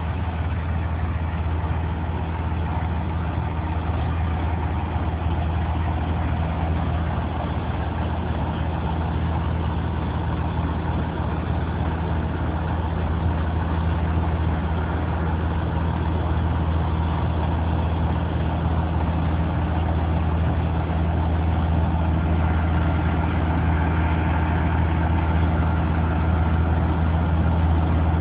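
Diesel engine of an asphalt road roller running steadily, a deep even hum that grows a little louder in the last few seconds as the roller comes closer.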